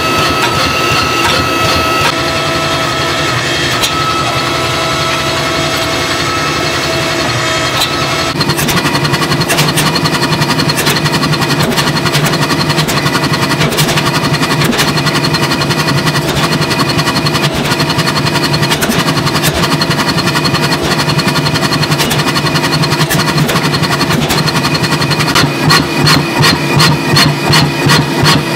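Electric motor and hydraulic pump of a forging press running with a steady hum. About eight seconds in, a mechanical power hammer starts pounding a hot steel hammer billet in rapid blows over the hum, the blows pulsing more heavily near the end.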